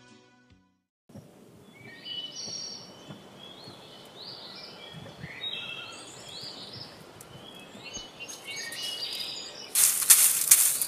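Small birds chirping over outdoor background noise. Near the end a straw broom starts sweeping across a layer of dried pods, a loud, scratchy rustle made of repeated strokes.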